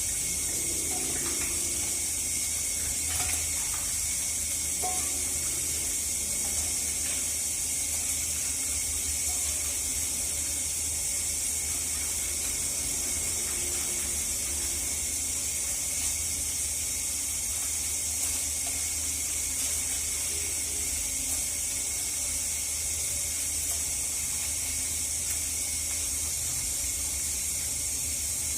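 Water running steadily from a tap while a cat is bathed, a continuous hiss with a steady low hum underneath.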